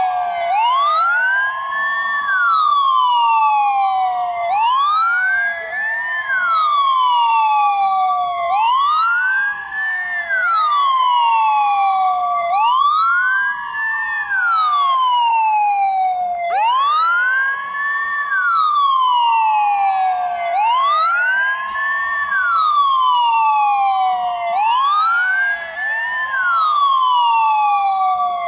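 Ambulance siren wailing: the pitch rises over about a second and a half, then falls over about two and a half, repeating about every four seconds, with a second, steadier tone held beside it.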